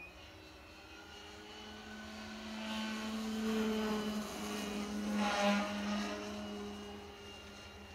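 Electric RC aerobatic model plane in flight: a steady motor-and-propeller drone that swells as it passes close, loudest about five and a half seconds in, then fades away.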